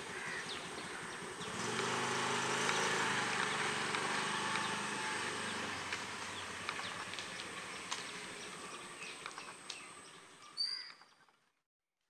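Honda scooter's small engine running as it pulls away, swelling about a second and a half in and then slowly fading, over a steady high insect drone; the sound cuts out just before the end.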